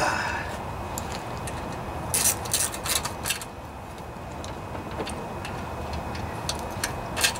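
Light metal clicks and rattles of a lawnmower engine's oil dipstick tube being handled and fitted into place, a cluster about two seconds in and another click near the end, over steady background noise.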